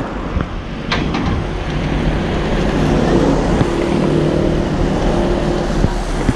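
Road traffic passing on wet asphalt: cars and a van driving by with engines running, plus a short sharp click about a second in.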